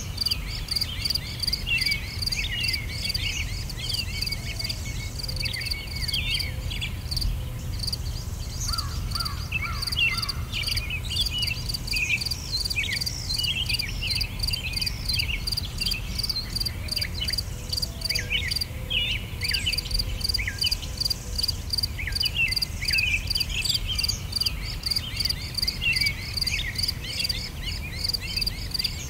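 Nature ambience of insects chirping in a steady, evenly pulsing rhythm, with many short chirping calls over them and a low steady rumble underneath.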